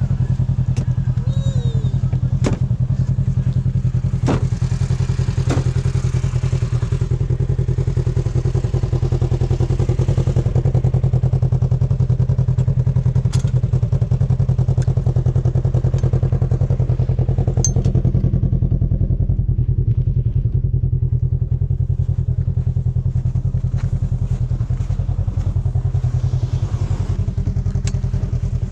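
An engine running steadily, with a fast, even pulse, and a few sharp knocks and rattles in the first few seconds.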